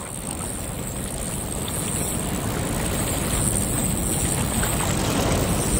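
Steady rushing noise of wind and water, gradually getting louder.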